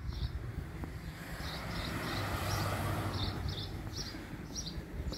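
A passing vehicle, its noise swelling to a peak about halfway through and then fading, while a bird chirps repeatedly, about three short chirps a second.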